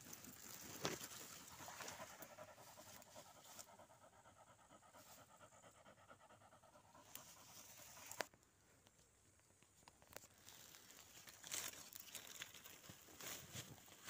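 Near silence with faint, rapid panting breaths, broken by a few brief rustles.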